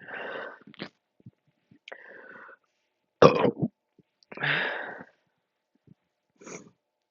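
A woman's short burps and throat-clearing sounds, about six in quick succession, the loudest about three and four and a half seconds in. They are gas coming up from speed-chugging carbonated soda.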